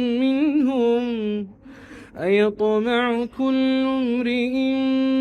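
A man's voice reciting the Quran in melodic tajweed, dry with no added echo, drawing out long held and ornamented notes. He breaks off for a breath about a second and a half in, then comes back on a long steady note.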